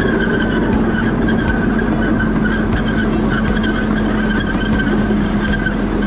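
Farm ride train running steadily, its engine and wheels rumbling with a constant low hum and a steady high squeal.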